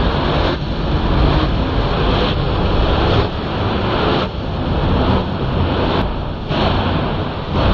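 Darjeeling Himalayan Railway toy train running, a loud, dense rush of noise with wind on the microphone, pulsing about once a second.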